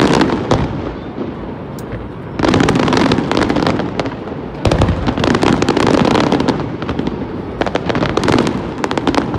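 Aerial fireworks display bursting in dense volleys of rapid bangs. The loudest volleys start about two and a half seconds in, again near the middle, and once more near the end.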